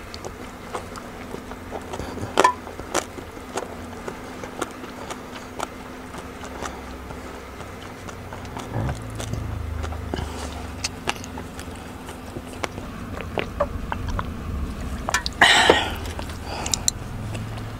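Close-miked mouth sounds of someone chewing bakso meatballs: scattered wet clicks and smacks over a low steady hum, with a short noisy burst about fifteen seconds in.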